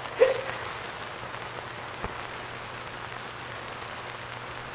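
Steady hiss of noise with no speech. A brief short sound comes about a quarter second in, and a faint click about two seconds in.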